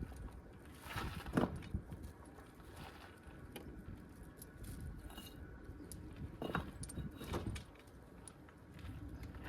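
A few brief clusters of clinks and rattles from small hard objects being handled, over a steady low rumble of wind on the microphone.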